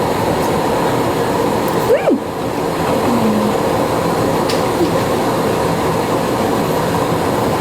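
A steady, continuous machine-like whirring hum with faint humming tones in it, with a short gliding vocal-like sound about two seconds in.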